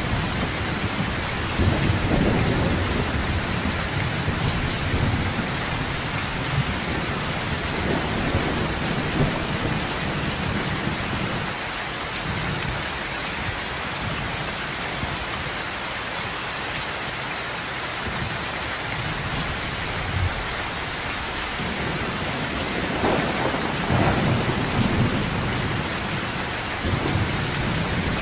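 Heavy rain falling steadily on a sheet-metal roof, with low rolls of thunder rumbling near the start and again in the last few seconds.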